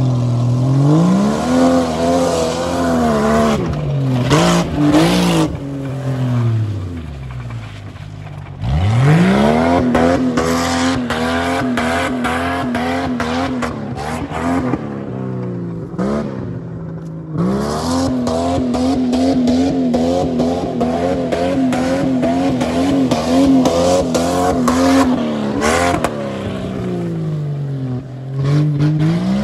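Jeep Grand Cherokee's engine revved hard and held high for several seconds at a time, the revs wavering, falling away between runs and sweeping sharply back up, as its wheels spin and slide on wet dirt.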